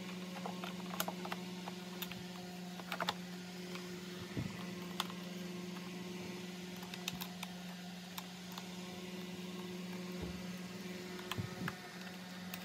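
Scattered small clicks and taps of plastic vacuum-cleaner housing parts and wire connectors being handled and fitted, over a steady low hum.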